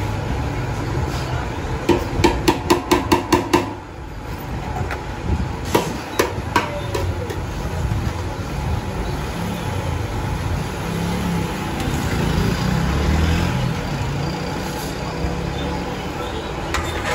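A quick run of about eight sharp, ringing knocks in under two seconds, like metal striking metal, then three more about two seconds later, over a steady background din.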